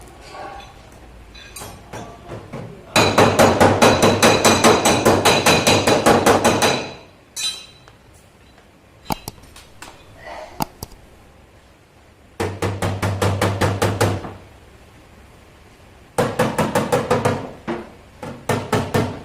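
Body hammer rapidly tapping out dents in a car door's sheet-metal panel, about five or six blows a second, with a metallic ring. It comes in four bursts: a long one of about four seconds, a few single knocks, then three shorter bursts.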